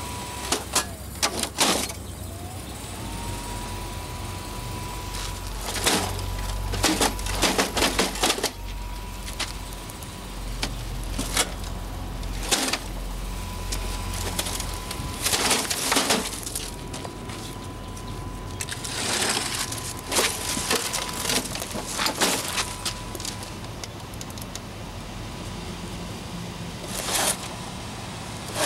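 Clusters of hard knocks and cracks from a Canon photocopier's plastic casing being battered and broken, every few seconds, over a steady high whine that drops out and slides back up about two seconds in.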